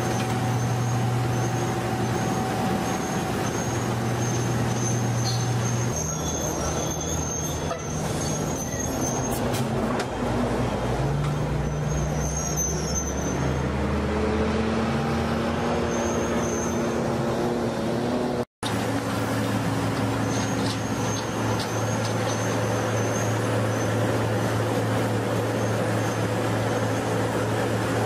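Heavy diesel engines of road-paving machinery running steadily, with a city bus passing. The engine note shifts abruptly several times.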